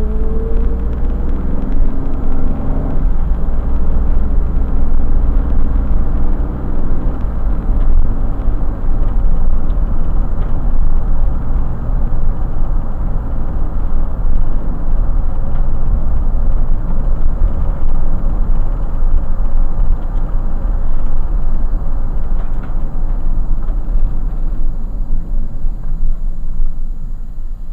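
Car driving, heard from inside the cabin: the engine pulls away with a rising pitch in the first few seconds, then a steady road and tyre rumble at cruising speed that eases off near the end as the car slows.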